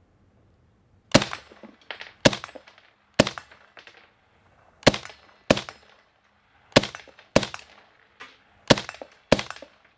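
Nine suppressed shots from a Desert Tech MDRX Micron short-barrelled 5.56 bullpup rifle firing .223 ball, at an unhurried pace of roughly one every half second to second and a half, starting about a second in. The suppressor only takes the edge off: each shot is still a sharp crack.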